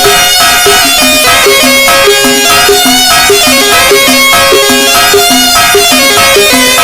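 Egyptian shaabi instrumental music led by an oriental electronic keyboard, with no vocals: a busy melody of quick, evenly repeated notes over a steady rhythm.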